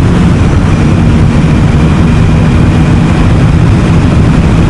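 Motorcycle engine running steadily while riding along at a constant pitch, with the rush of air and road noise mixed in.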